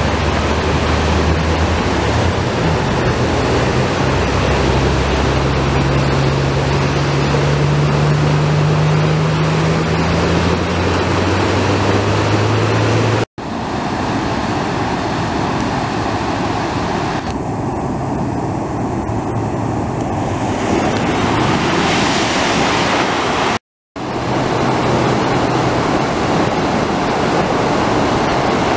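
Flash-flood water rushing and churning through a concrete arroyo channel, a steady loud noise. Through the first half a low vehicle engine hum runs underneath, slowly rising in pitch. The sound drops out briefly twice, about 13 and 24 seconds in.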